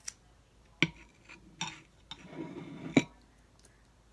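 Tableware being handled: four sharp clinks and knocks, about one a second, with a short rustle between the last two.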